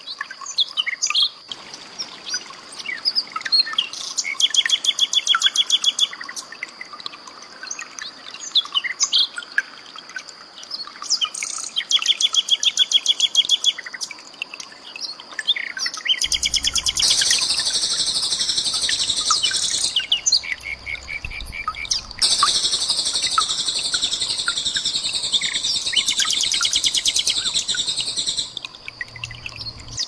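Common nightingale singing: phrases of rapid repeated notes and trills, growing denser and louder about halfway through. A steady high thin tone runs underneath.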